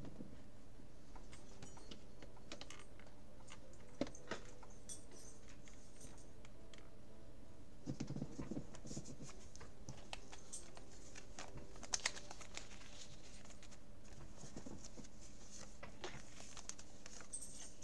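Trading cards and plastic binder pocket pages being handled: soft rustling and scattered light clicks, with a rustle about eight seconds in and a sharp double click about twelve seconds in.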